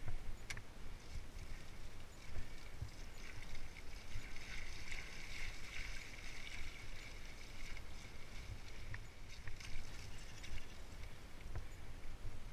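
Fat-bike tyres rolling over wet grass and mud, a steady swishing hiss that swells in the middle, with scattered small clicks. Wind rumbles on the camera microphone.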